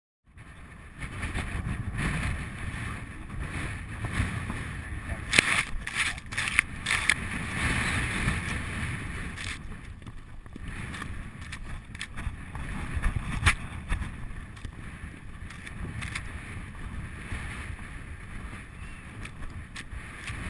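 Wind buffeting a rider's camera microphone on a horse moving at speed, a steady rumbling rush with scattered sharp clicks and knocks, several close together about five to seven seconds in and another near the thirteen-second mark.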